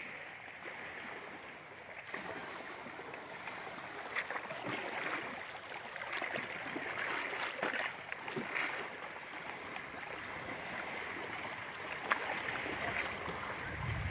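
Waves lapping and splashing: a steady wash of water with small scattered splashes, the waves building up.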